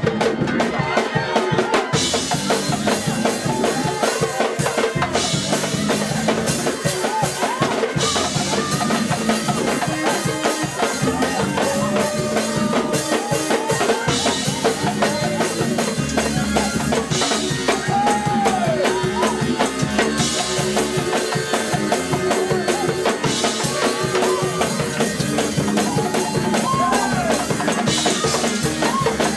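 Live church music with a drum kit keeping a steady beat under pitched instruments and voices.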